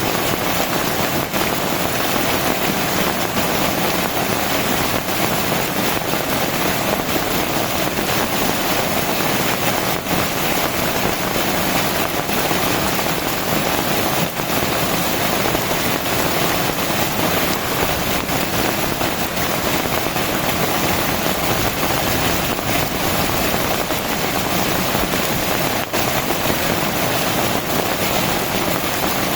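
Heavy rain pouring down steadily as a dense, even hiss, with a few sharper drop taps standing out now and then.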